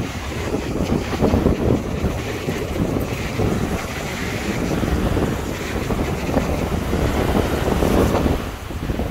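Wind buffeting the microphone, a gusty low rumble, over the wash of small waves breaking on a sandy shore.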